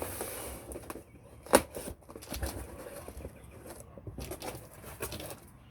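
Rustling and crinkling of packaging as a box of craft foam sheets is opened and handled, with one sharp knock about one and a half seconds in.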